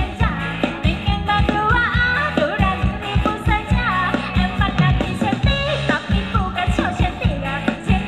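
Loud live dance-band music with a fast, steady bass-drum beat and a singer carrying the melody.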